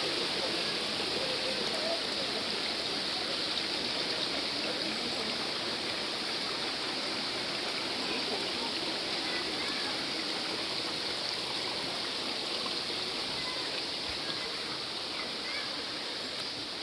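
A valley stream rushing steadily, an even full wash of flowing water that eases off slightly toward the end.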